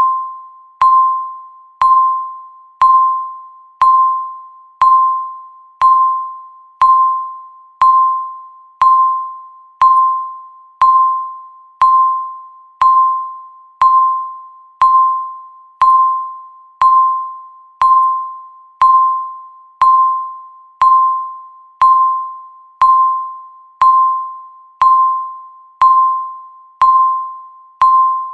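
Countdown timer's electronic beep sounding once every second, a steady ticking rhythm. Each beep is a single clear mid-pitched tone that starts sharply and fades out before the next.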